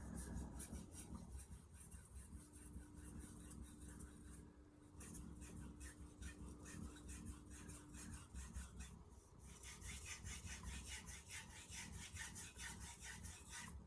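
A blue #2 carbon-steel santoku blade being stroked back and forth on a wet whetstone: a faint, rhythmic scraping of a few strokes a second, with brief pauses about four and a half seconds in and again around nine seconds.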